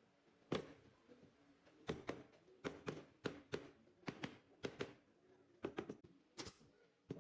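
A run of light, irregular knocks and taps on wood, about two a second, with a brief scrape near the end.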